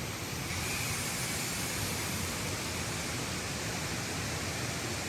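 Waterfall water rushing in a steady, even wash of noise.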